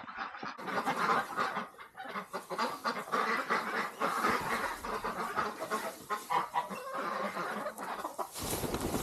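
A flock of chickens clucking and calling over one another. A low rumble builds near the end.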